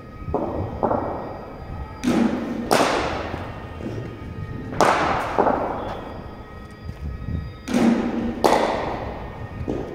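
Cricket ball impacts in an indoor net: three pairs of sharp thuds about three seconds apart, the two knocks in each pair well under a second apart, each leaving a short echo, with two lighter knocks in the first second.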